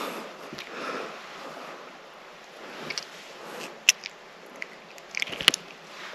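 Handling noise from unhooking a small bass by hand: a few short sharp clicks and taps, the loudest about four seconds in and a small cluster about five to five and a half seconds in, over a faint steady hiss.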